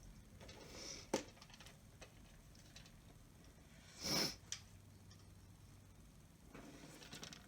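Mostly quiet room with small handling sounds: a sharp click about a second in and a short, louder scrape-like rustle about four seconds in, followed by a faint tick.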